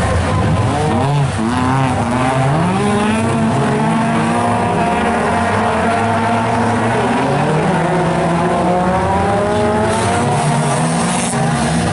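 A pack of Fol'Car autocross race cars on a dirt track, several engines at once revving up and easing off as the cars run through the corners.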